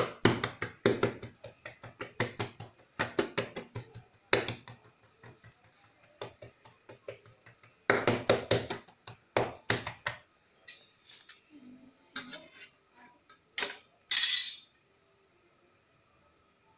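Clatter of kitchen utensils and dishes: quick clusters of sharp clicks and knocks, thinning out after about ten seconds, over a faint steady high hiss. A short loud rushing noise comes about fourteen seconds in.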